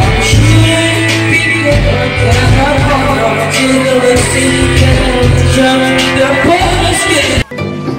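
A pop song with guitar and a singing voice over a steady bass line; about seven and a half seconds in it breaks off abruptly and a different tune starts.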